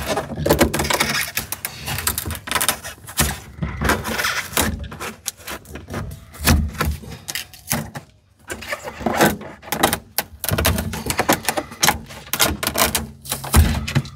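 A hand blade scraping and cutting at an old, cracked truck dash pad: an irregular run of scratches and crackles, with a brief pause about halfway through.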